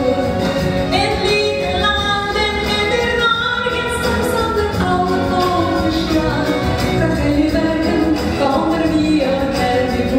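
A woman singing a song in Norwegian into a microphone over a PA, with held, gliding notes over instrumental accompaniment.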